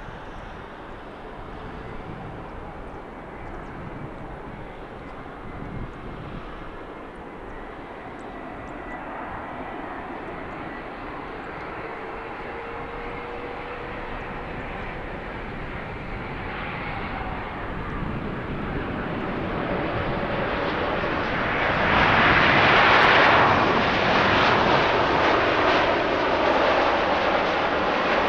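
Jet airliner's engines, a broad rushing noise with a faint whine, growing steadily louder as the aircraft draws near and loudest about 23 seconds in.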